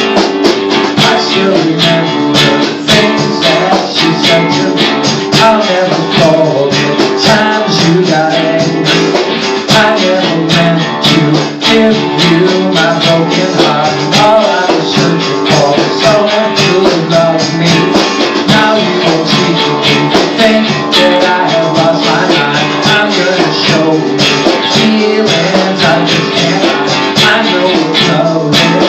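Acoustic guitar strummed steadily in a song, with a melody line over the chords.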